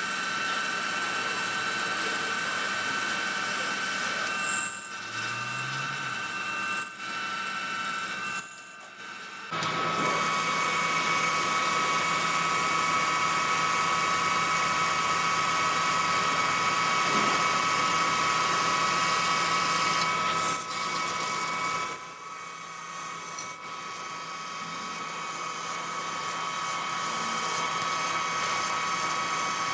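Metal lathe running with a steady machine whine, broken by a few brief high squeals and a short lull about nine seconds in.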